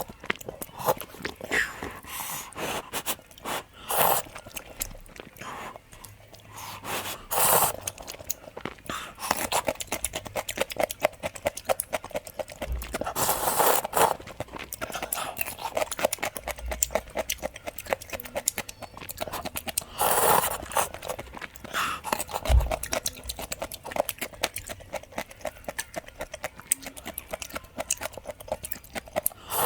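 A person eating instant noodle soup close to the microphone: steady wet chewing with repeated slurps, the loudest about 7, 13 and 20 seconds in.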